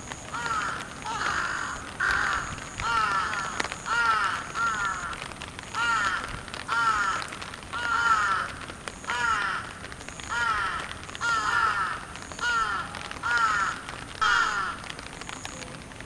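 A crow cawing over and over in a steady series, about one short, harsh caw a second.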